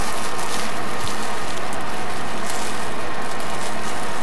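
Steady, loud hum and hiss of the space station module's ventilation fans and air circulation, with a few thin steady whine tones running through it.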